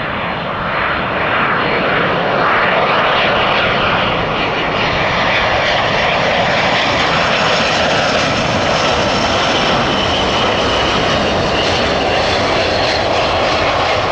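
Jet airliner's turbofan engines running, a loud, steady rushing noise with a faint high whine.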